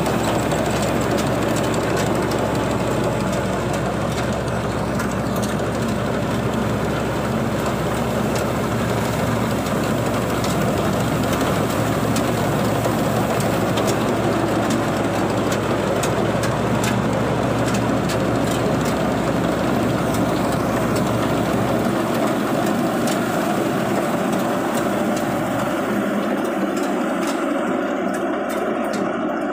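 Tracked paddy combine harvester running steadily as it cuts rice, its engine and header reel making a dense, loud mechanical din. The deepest hum weakens about three-quarters of the way through.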